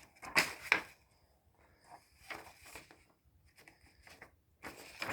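Paper leaflets rustling and sliding as they are handled, in several short bursts.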